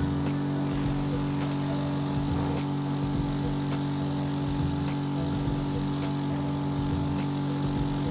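Agaro NB-22 compressor nebulizer's motor running with a steady hum.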